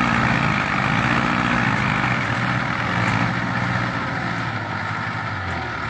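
Small Kubota farm tractor's diesel engine running steadily as it hauls a loaded trailer through mud, growing slightly fainter toward the end.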